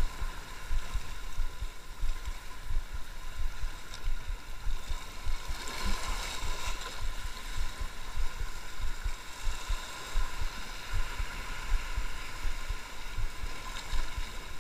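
Choppy sea washing against rocks, with gusting wind buffeting the microphone in an uneven low rumble.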